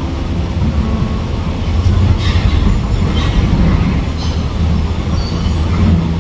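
Heavy machinery running with a steady low rumble, and brief metallic scraping squeals about two and three seconds in and again near four seconds.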